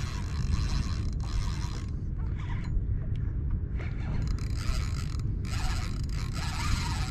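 Fishing reel giving out bursts of rapid, zipper-like ratcheting whirr, each a second or two long with short breaks, as a hooked redfish pulls and the line is worked. A steady low rumble runs underneath.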